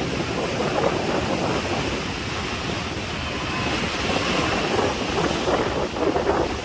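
Rough sea surf: heavy waves rushing and breaking in a continuous wash, with louder surges now and then.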